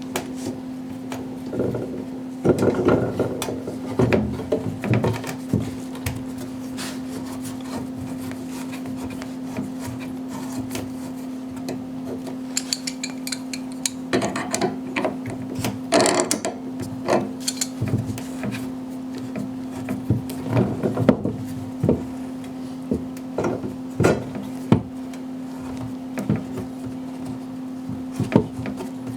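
A tubing cutter being worked around a copper pipe: irregular metallic clicks, knocks and scraping as the cutter is turned and its feed dial tightened with small vise grips, over a steady hum.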